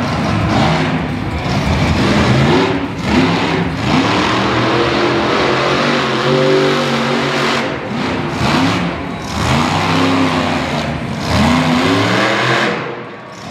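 Bounty Hunter monster truck's engine revving hard again and again, its pitch rising and dropping back every second or two as the truck drives and turns on the dirt, with a brief lull near the end.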